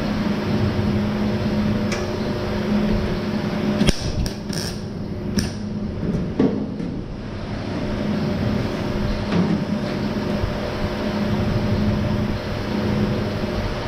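A few sharp metallic taps of a hand hammer and tools on car body sheet metal, most of them bunched together about four to five and a half seconds in, over a steady hum.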